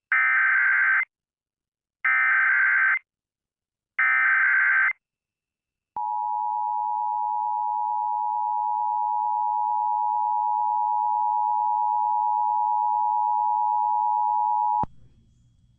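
Emergency Alert System activation for a tornado warning: three one-second bursts of SAME header data tones about a second apart, then the EAS two-tone attention signal (853 and 960 Hz), held steady for about nine seconds before it cuts off.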